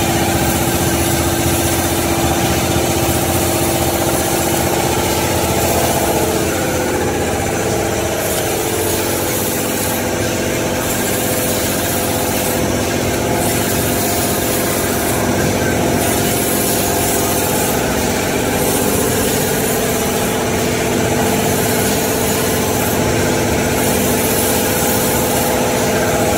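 Automatic band saw cutting machine for maxi toilet tissue rolls running: a steady, loud mechanical hum with several held tones. From about seven seconds in, a faint high hiss swells and fades about every two and a half seconds.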